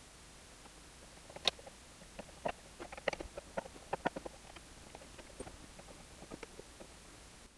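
Light, irregular clicks and knocks of wood and hand tools being handled, a dozen or so over several seconds.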